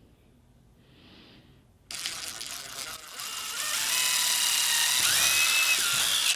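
Cordless brushless drill with a 5/64-inch bit boring a pilot hole into the end of a wooden chair leg, so that a nail-on glide can go in without cracking the leg. The drill starts suddenly about two seconds in and gets louder about a second later. Near the end its motor whine climbs in pitch, and then it stops abruptly.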